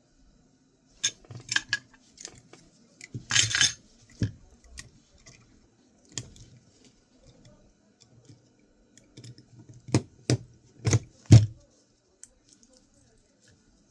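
Small metal hard-drive parts and tools clinking and clicking as the drive is taken apart by hand. There are scattered clicks, a short rattle about three seconds in, and a run of four sharp clicks near the end.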